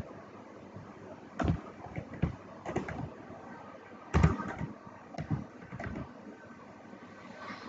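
Computer keyboard keystrokes typed in scattered, irregular clicks, the loudest about four seconds in.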